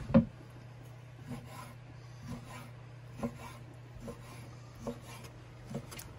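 Chef's knife cutting squid on a wooden cutting board: one sharp knock of the blade on the board just after the start, then lighter knife knocks about once a second.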